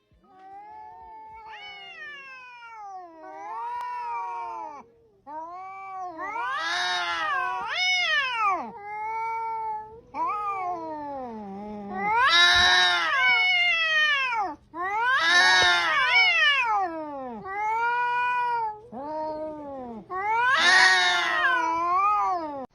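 A domestic cat meowing over and over in long, drawn-out wailing calls, each rising and then falling in pitch, quieter at first and louder from about six seconds in.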